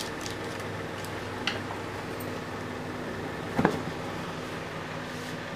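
Steady low electrical hum, with a faint tick about one and a half seconds in and a louder short clatter of a steel kitchen utensil being handled a little past halfway.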